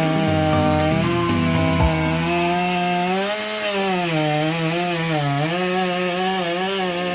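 Chainsaw running under load, cutting through oak wood. The engine pitch dips and recovers several times about halfway through as the chain bogs in the cut.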